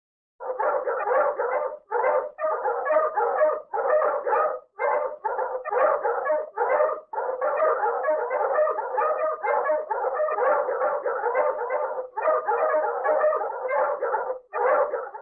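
Dogs barking and howling in a dense, overlapping chorus. It starts about half a second in and keeps going with a few brief pauses.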